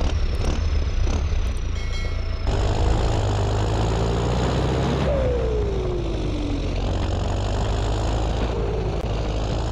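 Steady motor drone of a DIY miniature tractor driving its tanker trailer through sand. About five seconds in, a whine falls in pitch.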